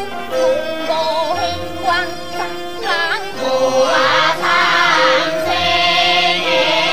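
A female voice sings a Teochew opera aria over a traditional Teochew opera instrumental ensemble. About halfway through, the accompaniment grows fuller and denser.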